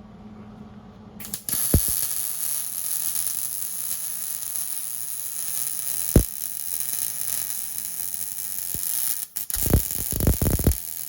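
A welding arc sizzles and crackles steadily on the truck's exhaust pipe, starting about a second in and breaking off briefly near the end. A few sharp knocks sound along the way, with a cluster of them near the end.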